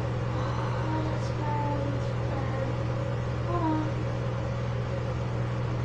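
A steady low hum, with a few faint short pitched sounds about a second in and again around three and a half seconds.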